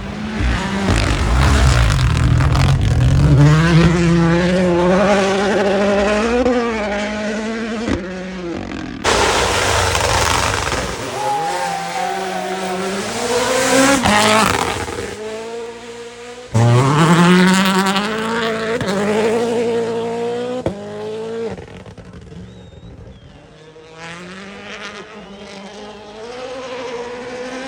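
Rally cars' turbocharged four-cylinder engines accelerating hard through the gears as they pass, the revs climbing and dropping at each upshift. Several passes follow one another with abrupt cuts between them, and the last is fainter.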